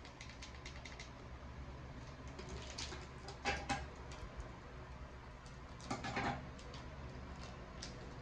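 Faint handling sounds of a plastic coffee sachet being cut open with scissors: light clicks and crinkles, with two louder snips or rustles a few seconds apart.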